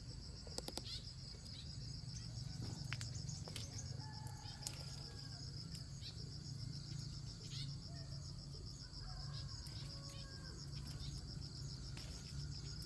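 Insects trilling in a steady high pulsing drone, over a low steady hum, with a few scattered clicks.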